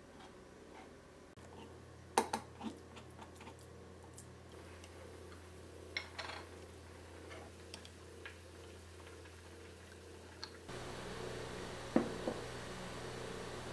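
Scattered light clicks and knocks of kitchen utensils on cookware: a wooden spatula working against a steel mesh sieve and a glass bowl, and a jar being handled. Near the end a metal spoon clinks against a stainless steel saucepan. A low steady hum lies underneath.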